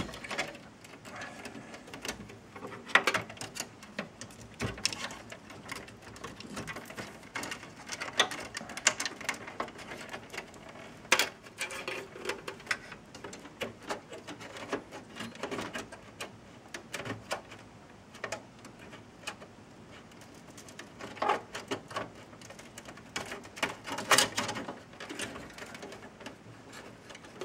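Handling noise inside a desktop computer case: scattered plastic and metal clicks, knocks and rustling as cables are moved aside and the front-panel USB and power-button board is worked loose. The sharpest clicks come about three seconds in, about eleven seconds in and near the end.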